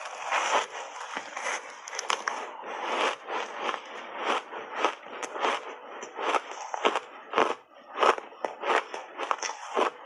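Biting into and chewing a block of refrozen ice coated in matcha powder: a rapid, irregular run of crisp crunches and cracks as the ice breaks between the teeth.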